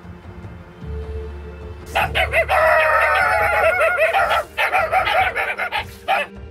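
A litter of German Shepherd puppies whining and yelping together, several high calls with wavering pitch overlapping, starting about two seconds in and stopping just before the end.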